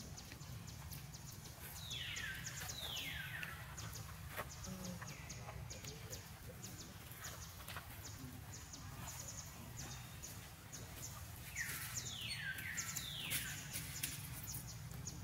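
An animal giving high calls that fall in pitch, in short runs of two or three, about two seconds in and again near the end. Faint rapid high ticking and a steady low rumble of forest ambience run underneath.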